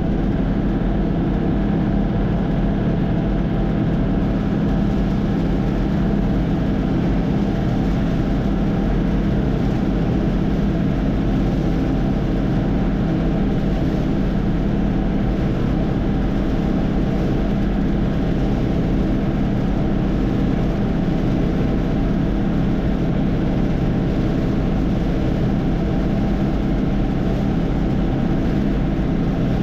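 Combine harvester running steadily while harvesting soybeans: a constant engine drone with the hum of the threshing machinery.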